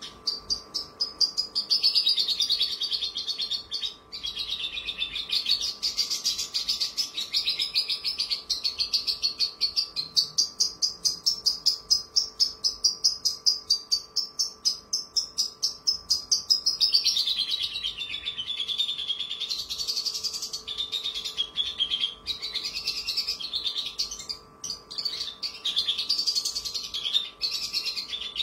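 Horsfield's bush lark (branjangan, Mirafra javanica) singing a long, unbroken chatter of very fast repeated high notes that swoop up and down in pitch.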